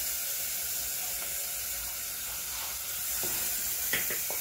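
Butter sizzling steadily as it goes into a hot stainless-steel saucepan, with a few light clicks near the end.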